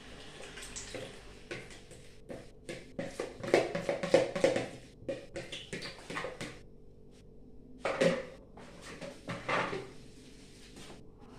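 Plastic mixing bowl knocking and scraping against the rim of a frying pan as a thick mixture is emptied into the sauce, with scattered clatters, busiest a few seconds in.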